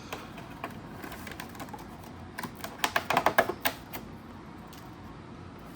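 Cardboard and plastic packaging of a holiday calendar being handled as a compartment is opened: scattered sharp clicks, then a quick run of louder clicks and crackles about two and a half seconds in, lasting about a second.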